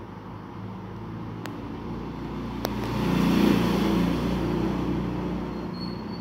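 A motor vehicle passing by: its engine hum grows louder to a peak a little past halfway, then fades. Two sharp clicks come shortly before the peak.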